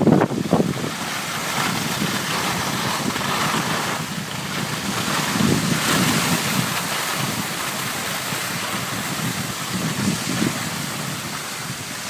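Wind buffeting the microphone with a steady rushing hiss of skis sliding over snow, swelling into low gusts at the start, about halfway through and again near the end.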